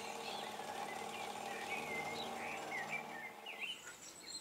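Dore Westbury milling machine running with its end mill cutting an aluminium block: a steady hum that stops about three and a half seconds in. Small birds chirp throughout.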